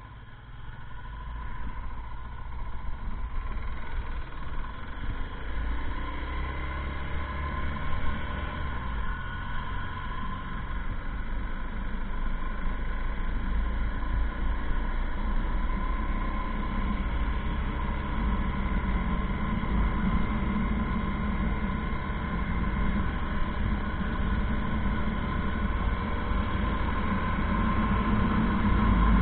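Motorcycle riding on an open road: the engine pulls away, getting louder over the first couple of seconds, then runs steadily with a heavy rush of wind on the microphone.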